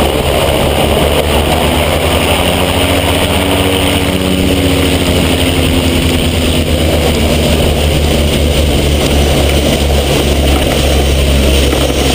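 Light propeller aircraft's engine running steadily under heavy wind noise, with the rumble of the nose wheel rolling over a grass airstrip during the landing roll.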